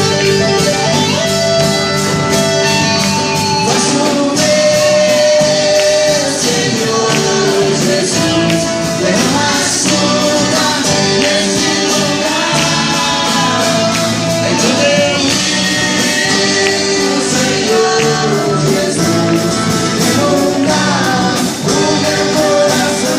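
Gospel worship group singing with band accompaniment: voices holding and gliding between long notes over instruments and a steady beat.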